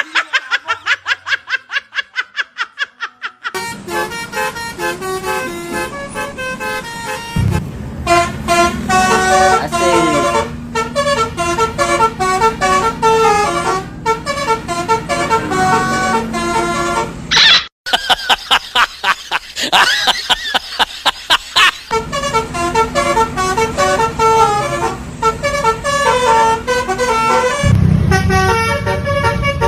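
Multi-tone 'telolet' bus air horn, Basuri type, playing quick tunes of short notes, in several separate stretches that cut off abruptly. It opens with a fast stutter of repeated notes, and a steady low hum runs under some stretches.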